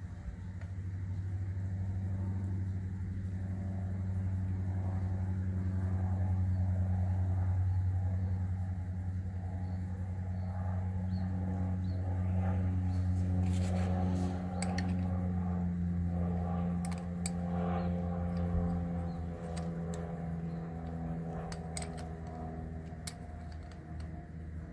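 A steady low mechanical hum, with light metallic clicks and taps from about halfway through as a hydraulic line fitting on a spoiler lift cylinder is handled.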